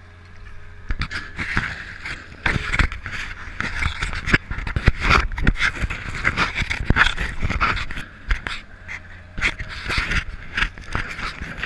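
A dog panting close to the microphone in quick, uneven breaths, over the faint steady running of a Link-Belt excavator's engine.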